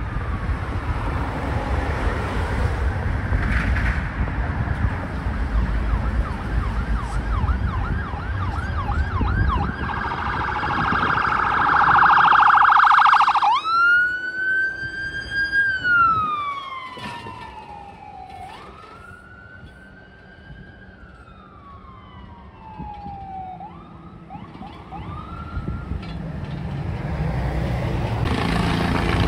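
Ambulance's electronic siren going past: a fast yelp growing louder, which switches near its loudest to a wail that rises quickly and falls slowly two or three times, fading as it moves away. Traffic runs underneath.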